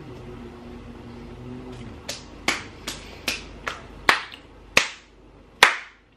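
A person hums a steady closed-mouth "mm" while chewing. Then come eight sharp hand claps, about two or three a second at first and then more spaced out.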